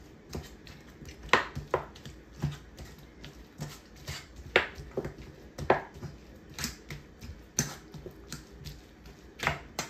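Metal fork shredding boiled chicken breast in a stainless steel bowl: light, irregular clinks and scrapes of the tines against the bowl, roughly one a second.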